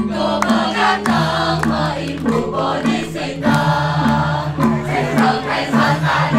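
Women singing a Balinese song together, over a low accompaniment of repeated notes about twice a second.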